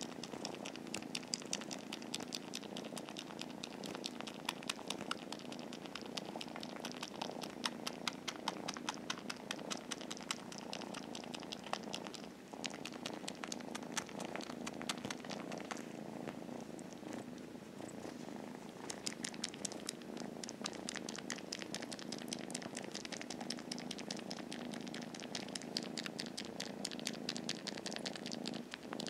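Kitten purring steadily close to the microphone, with quick wet smacking clicks as it suckles on a shirt as if nursing, which the owner takes for a sign that it misses its mother. The clicking thins out for a few seconds in the middle.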